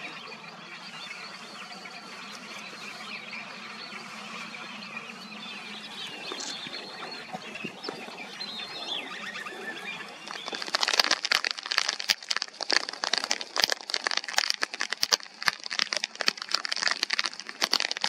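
Birds calling over a quiet natural ambience, then from about ten seconds in a loud, dry, irregular crackling rattle of rapid clicks.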